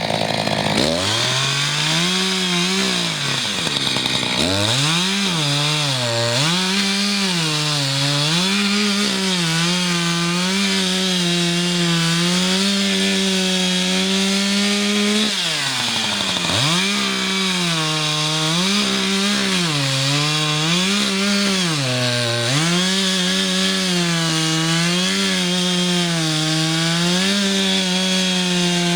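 Two-stroke Echo chainsaw cutting through a log at full throttle, its engine note sagging and recovering again and again as the chain bites into the wood. About 4 seconds in, and again near the middle, the throttle is let off and the engine note falls away, then revs back up for the next cut.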